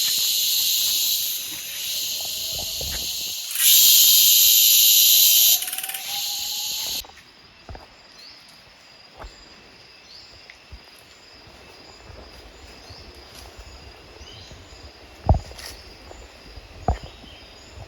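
Loud, steady, high-pitched buzzing of cicadas, at its loudest for about two seconds, then cutting off suddenly about seven seconds in. After that come quieter jungle sounds: short rising chirps and a few sharp knocks.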